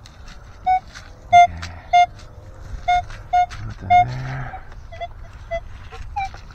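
Minelab Equinox 900 metal detector giving about nine short target beeps, spaced unevenly and varying a little in pitch, as the coil sweeps over buried metal.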